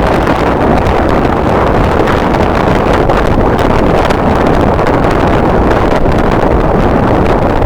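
Strong wind buffeting the microphone: a loud, steady rush of noise with no clear tone.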